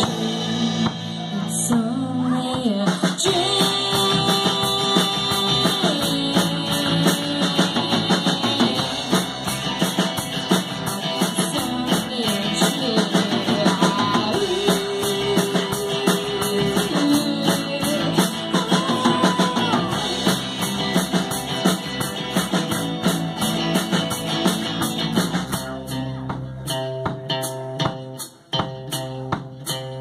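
Live rock band playing with electric guitar, bass guitar, keyboard and drum kit. The playing thins out and drops in level near the end.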